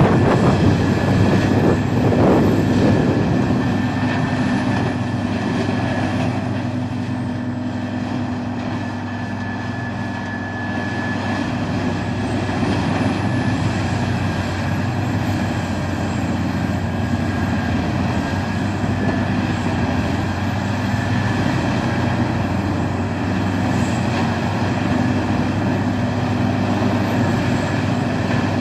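Peterson 4300B horizontal drum wood chipper running, a steady loud machine drone with a constant hum. It is loudest in the first few seconds and dips slightly about a third of the way in.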